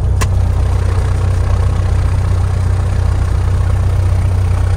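Light aircraft's piston engine running at low power during taxi, a steady low hum with propeller and cabin noise, heard inside the cockpit. A single sharp click comes a moment in.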